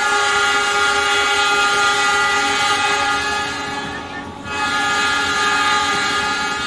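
Train horn heard from inside a passenger car: a loud, steady, multi-tone blast lasting about four seconds, then after a short break a second blast that fades near the end.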